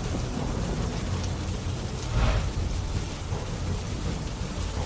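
Heavy rain with low rolling thunder: a steady hiss of rain over a deep rumble that swells briefly about two seconds in.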